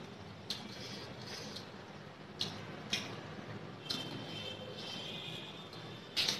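Mouth sounds of eating rice and chicken curry by hand: chewing with about five sharp, wet smacks of the lips and fingers spread through, the loudest near the end as the fingers are licked.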